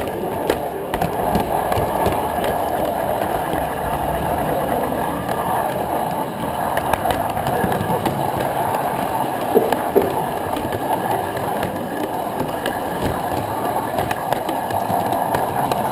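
G-gauge (LGB) model train rolling along its track, heard from a camera riding on it: a steady rumble of metal wheels on the rails, with frequent clicks over rail joints and points and two sharper clicks about ten seconds in.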